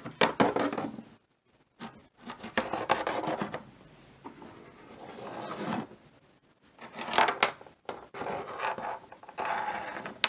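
Small plastic toy figures being slid and shuffled across a tabletop by hand: several scraping rubs about a second each, with short pauses between.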